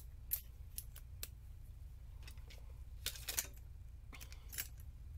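Light clicks and clinks of small metal screwdriver bits and shaft pieces being handled and swapped around, a handful of separate clicks with a quick cluster around the middle. A low steady hum runs underneath.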